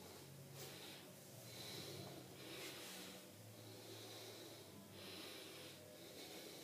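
A person breathing heavily, faint rushing breaths about every second or so, over a soft low hum.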